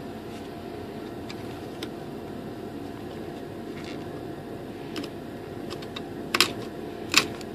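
A hand-held blade cutting through a thin wooden former inside a composite glider fuselage. The wood gives a few sharp, crispy cracks as it breaks, the loudest pair near the end, over a steady faint hum.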